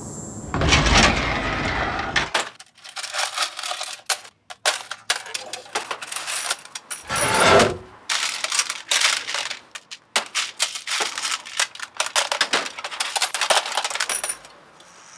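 Loose metal bolts and screws clattering and jingling in wooden hardware drawers: a rapid, irregular run of small metallic clicks and rattles. There are two longer, fuller rushes of the clatter, one near the start and one about halfway through.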